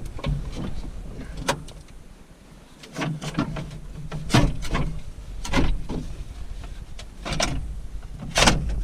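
Irregular metallic clanks and knocks, about a dozen scattered through, from tools and parts as a broken linkage rod is worked loose under a tractor, over a steady low rumble.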